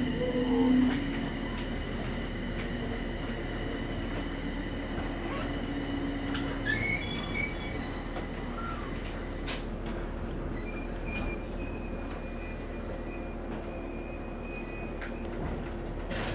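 E721-series electric train standing at a platform: steady hum and high whine of its onboard electrical equipment, with a few scattered clicks.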